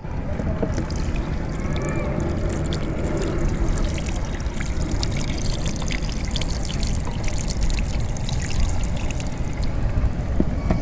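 Outdoor ambience at the water: a steady low rumble of wind on the microphone with scattered light ticks and trickling water.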